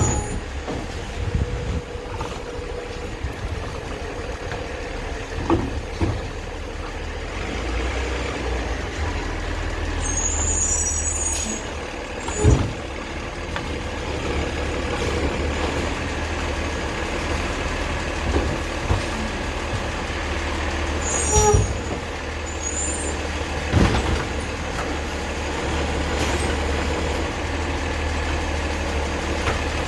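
Automated side-loader garbage truck, a 2022 Autocar with a Heil DP Python body, running with a steady low engine rumble, broken by several sharp knocks and bangs, the loudest about twelve seconds in, and three brief high-pitched sounds.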